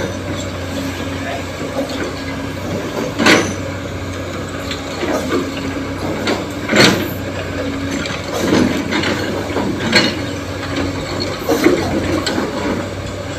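Heavy diesel machinery (a dump truck and an excavator) running steadily, with four or five sharp metallic clanks a few seconds apart.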